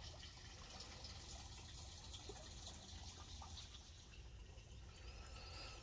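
Near silence: faint outdoor ambience, a low steady hiss and rumble, with a faint high wavering chirp shortly before the end.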